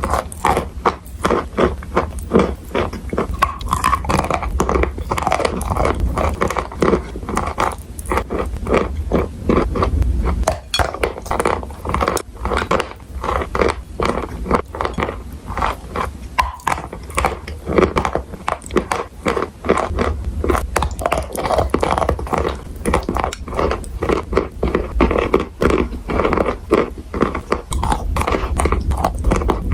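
Chalk and clay being bitten and chewed close to the microphone: a dense, continuous run of dry crunches and scrapes.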